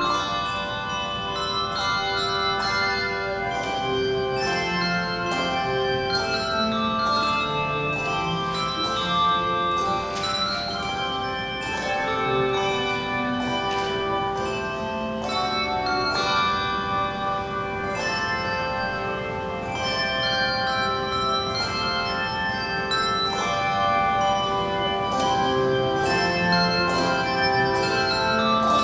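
Handbell choir playing: many tuned handbells struck one after another, their tones ringing on and overlapping.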